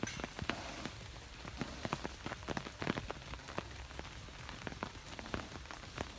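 Rain pattering, with irregular sharp drops striking close by over a steady hiss.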